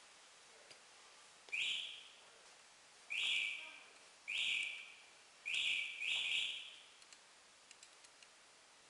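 Five short hisses of compressed air from the pneumatic glue-dispensing head of a mouse trap glue board making machine. Each starts sharply and fades over about half a second, and the last two come close together. Faint small clicks follow near the end.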